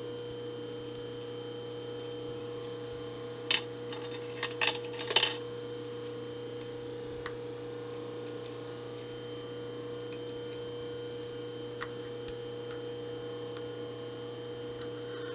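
A few sharp metallic clinks of tools being handled, with a cluster about four to five seconds in, over a steady electrical hum.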